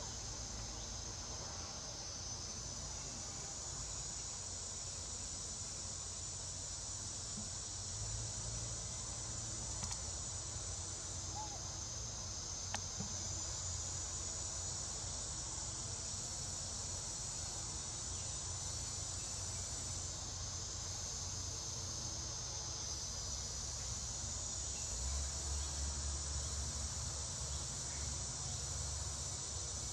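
A steady, shrill insect chorus drones high, swelling and fading in long waves, with a low rumble underneath.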